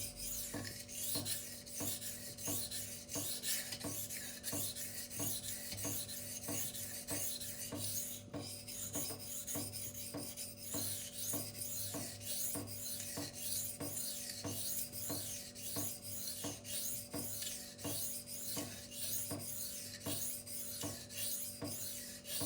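K110 steel knife blade being sharpened freehand on a 1000-grit silicon carbide stone: steady rhythmic strokes of steel rasping across the stone.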